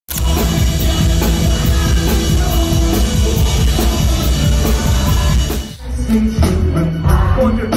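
Rock band playing live, loud, with drum kit and singing. The music cuts in abruptly and dips briefly just under six seconds in before carrying on.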